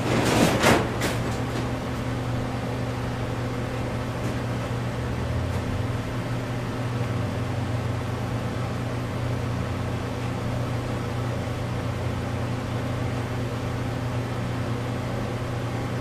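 Steady machine hum with a brief clatter of metal about half a second in.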